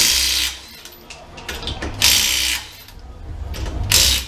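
Impact wrench on the suspension bolts of a Honda CR-V, run in three short bursts of about half a second each, with a low hum between them.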